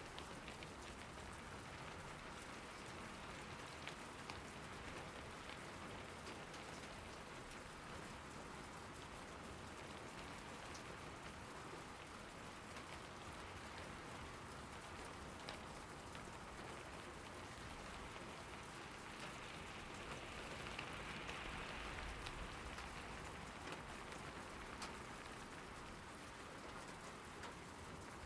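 Steady rain falling, with many individual drops ticking close by; it swells a little about two-thirds of the way through.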